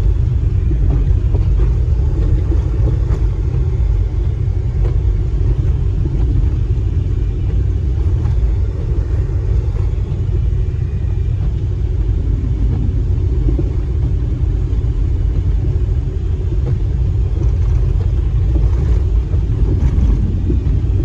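A 1998 Honda CR-V's four-cylinder engine and tyres heard from inside the cabin while driving through deep snow: a steady low rumble.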